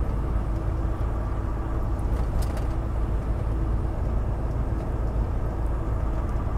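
Semi truck driving, heard from inside the cab: a steady low engine drone with road noise.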